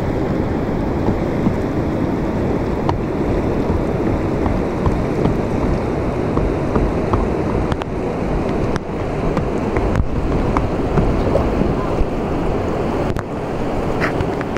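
Steady rushing of the fast-flowing Indus River close by, mixed with wind buffeting the microphone.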